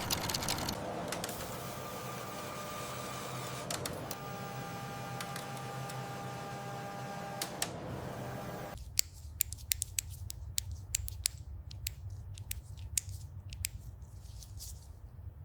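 Factory machinery running with a steady hum and a few held tones, which cuts off abruptly about nine seconds in to a low rumble with scattered sharp clicks.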